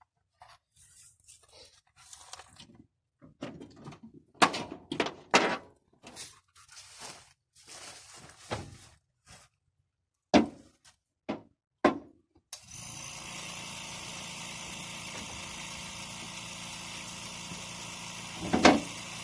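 Hand tools knocking, clanking and scraping on metal under a truck, in short separate knocks. About two-thirds through the sound cuts to a steady mechanical hum, and one loud knock comes near the end.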